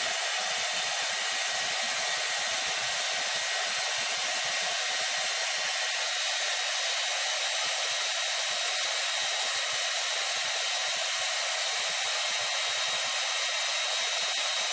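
Handheld electric hair dryer running steadily: a constant rush of blown air with a thin, steady whine in it.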